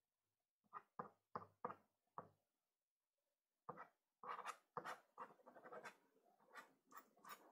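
Faint strokes of a soft pastel stick scratching across Pastelmat: about five quick strokes, a short pause, then a denser run of strokes.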